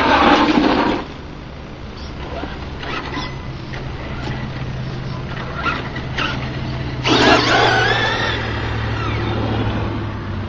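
Brushless electric motor of a Duratrax Evader EXT2 RC truck (Tacon 3930kv) whining and sweeping in pitch as the truck speeds close past, once at the start and again about seven seconds in, with fainter bursts of throttle between. A steady low hum runs underneath.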